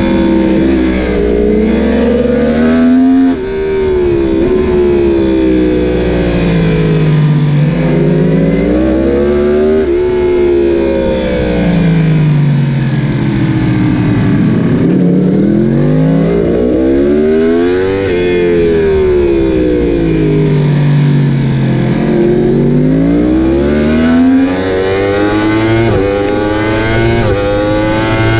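A Yamaha sportbike's inline-four engine, heard from on board at racing speed: the revs climb and fall again and again as the bike accelerates, brakes and shifts through corners, with sudden jumps up in pitch on the downshifts. Wind rush sits under the engine.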